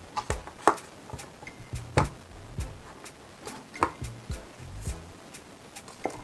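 Handling of a smartphone and its cardboard retail box as the phone is lifted out: scattered light knocks and clicks, about one a second.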